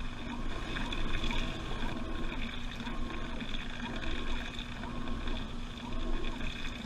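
Washing machine running mid-cycle, heard from inside the drum: water sloshing and gurgling as the drum turns, over a steady motor whine with a tone that rises and falls over and over.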